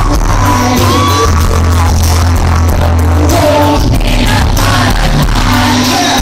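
Live indie-pop band playing, with a sung vocal line over it, recorded on a phone from inside the crowd. The bass is heavy and overloads the phone's microphone, so the sound is loud and distorted.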